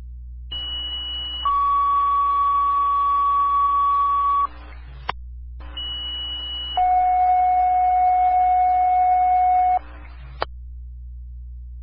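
Two two-tone sequential pager alerts over a fire dispatch radio channel, each a short high tone followed by a longer, lower steady tone, the second alert's long tone lower than the first's, each ending in a sharp squelch-tail click, over a steady low radio hum. The tones set off the pagers of the mutual-aid fire departments being called out.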